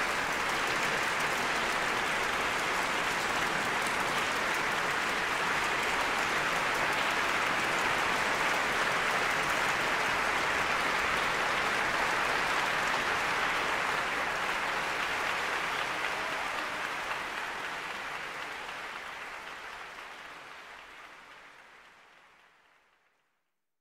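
Audience applause, steady and dense, fading out over the last several seconds.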